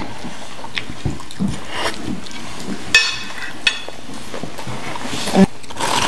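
Eating sounds at a dinner table: chewing, with a few short clicks of a fork against a plate and a brief crunch about three seconds in.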